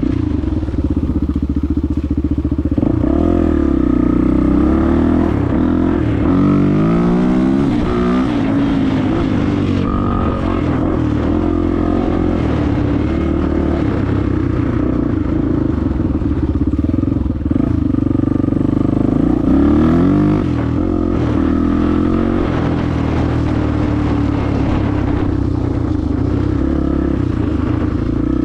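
Honda XR250R's air-cooled single-cylinder four-stroke engine running under way, the engine note rising and falling with the throttle a few times, most markedly twice.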